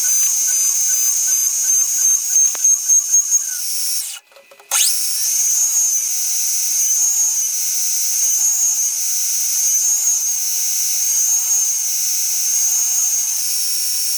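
CNC milling machine spindle running with a high whine while machining a steel part. It stops briefly about four seconds in and spins back up with a rising whine, then its pitch dips and recovers about every second and a half.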